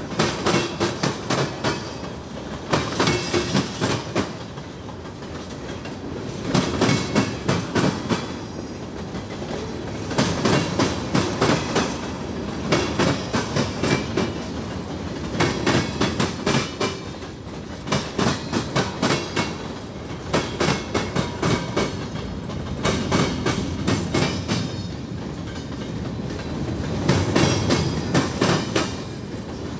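Freight train cars rolling past, their wheels clacking over the track in quick clusters every two to three seconds as each car's wheel sets go by, over a steady rolling rumble.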